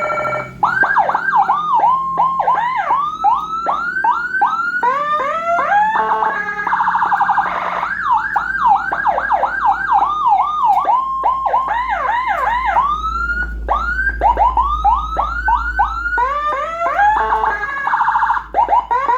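Whelen HHS electronic siren module sounding, switching between tones: fast rising-and-falling yelp sweeps about three a second, stretches with two overlapping sweep patterns, and short steady horn-like blasts about seven seconds in and near the end.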